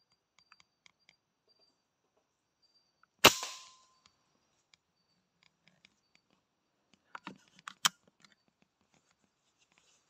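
A single air rifle shot, a sharp crack with a brief ring, about three seconds in. Some four seconds later comes a quick rattle of clicks ending in a second sharp snap.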